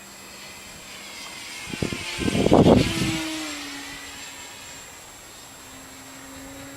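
Electric RC plane with a brushless motor and propeller making a pass: the whine grows louder, peaks with a rush of air about two and a half seconds in, then drops in pitch as it moves away. The wings started to flutter a little on this pass.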